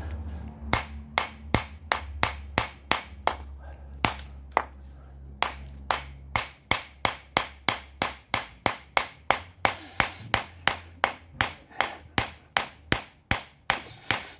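Steel ball-peen hammer striking the edge of a small quartzite boulder in a long run of sharp blows, spalling flakes off the rock. The blows come about two a second at first, then settle into a quicker, even beat of about three a second.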